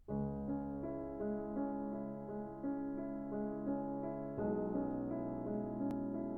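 Intro music: a piano or electric keyboard playing a gentle melody with sustained chords.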